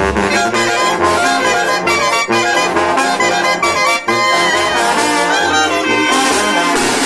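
Mexican banda (brass band) playing: trumpets and trombones in short rhythmic phrases over a pulsing low brass bass line.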